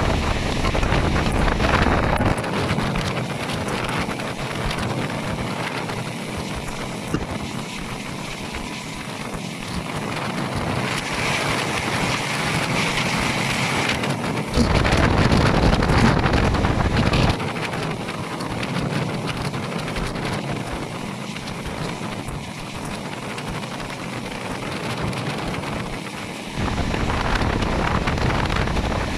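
A passenger train running along the line, heard from an open carriage window, with wind rushing over the microphone. The low wind buffeting comes and goes: strong in the first couple of seconds, again from about 15 to 17 seconds in, and once more near the end.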